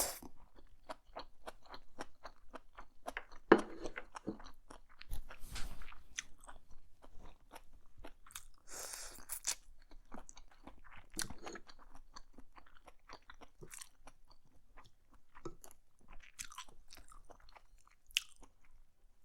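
A person chewing and biting into black bean noodles, enoki mushrooms and shrimp, heard up close: many small, irregular crunching clicks, with a few short noisy rushes between them.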